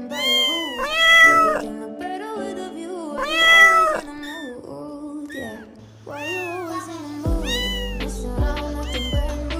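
A kitten meowing repeatedly, several drawn-out meows that rise and fall in pitch, the two loudest in the first four seconds, over background music that gains a deep bass line about seven seconds in.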